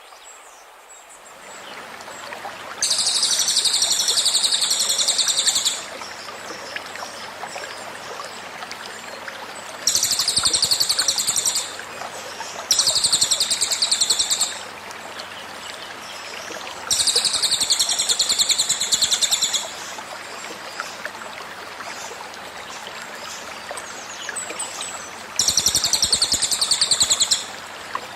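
A cililin bird's rapid-fire 'tembakan' song: five bursts of fast, high trilling, each two to three seconds long. Under it runs the steady babble of a flowing stream.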